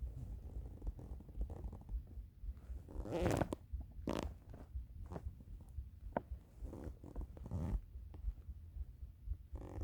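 A hungry person's stomach rumbling: a run of irregular gurgles, the longest and loudest about three seconds in.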